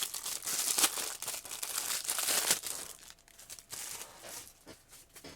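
Paper crinkling and rustling as craft pages are handled, dense for about two and a half seconds, then sparser, quieter crinkles and light clicks.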